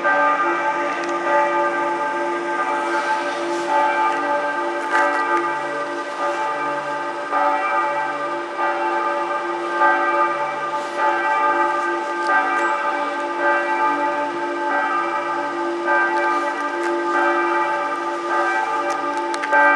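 Church bells pealing: several bells ringing together with overlapping strokes, their tones sustained, and a low bell struck about every second and a half.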